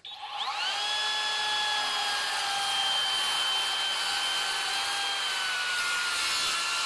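Skilsaw TRUEHVL cordless worm drive circular saw's brushless motor spinning up with a rising whine, then plunge-cutting into and through a pressure-treated 4x6. The blade's whine holds nearly steady under load, dipping only slightly in pitch late on, with no bogging down.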